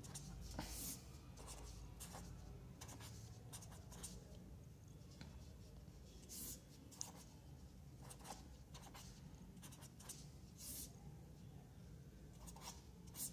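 Felt-tip pen writing numbers on paper: faint, short scratchy strokes coming in irregular bursts.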